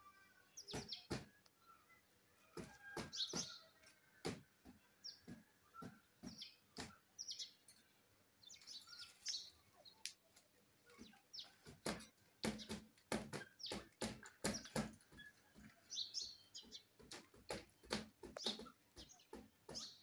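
Indian ringneck parakeet giving short high chirps among many sharp clicks and taps as it climbs over the wire cage, its beak and feet gripping the bars. The clicks come thick and fast through the second half.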